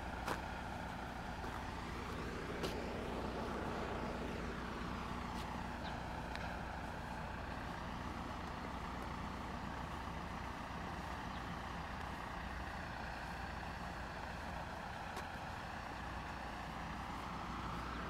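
Steady motor-vehicle noise from a truck running nearby, with slowly shifting tone. A sharp click sounds just after the start and another between two and three seconds in.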